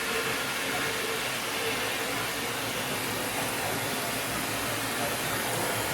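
Water rushing steadily from a tap opened wide, a constant hiss, as the freshly replaced water heater and its lines are filled and flushed through.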